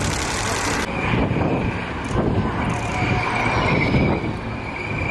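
CM-32 Clouded Leopard eight-wheeled armoured vehicles driving, engines and tyres running. From about a second in there is a steady high whine, with a fainter whine slowly falling in pitch.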